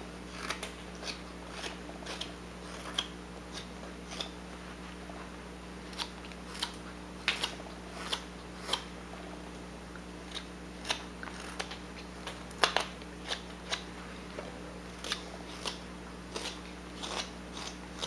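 Whittling knife slicing chips off a wooden bird blank, each cut a short sharp sound, coming unevenly about one or two times a second.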